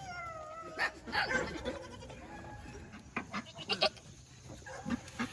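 A goat bleating, one falling call near the start, followed by scattered sharp knocks and rattles.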